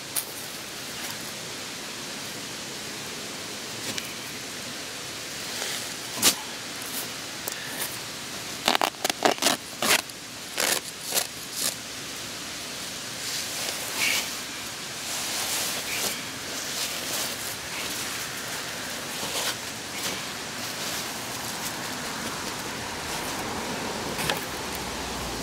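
A plastic sandbag being slit open with a knife and emptied of sand, giving a cluster of sharp crackles and clicks between about six and eleven seconds in, with lighter rustling after. A steady hiss runs underneath.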